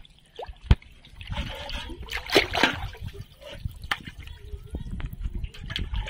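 Water sloshing and splashing around a large metal pot being pushed through waist-deep water, with a sharp knock about two thirds of a second in.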